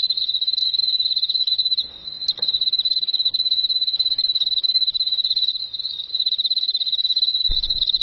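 Crickets chirping in a continuous high-pitched trill of rapid pulses, dipping briefly about two seconds in.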